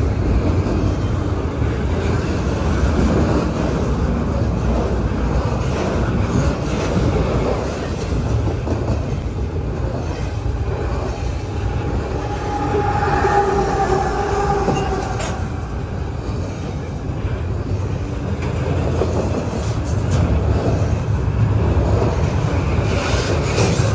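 Double-stack intermodal freight train rolling past, a steady loud rumble of steel wheels on rail. About halfway through, a brief whine rises over the rumble as the mid-train GE ET44AC diesel locomotive approaches.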